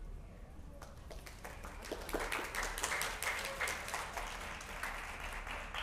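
Audience applauding, starting about a second and a half in and quickly swelling into steady clapping.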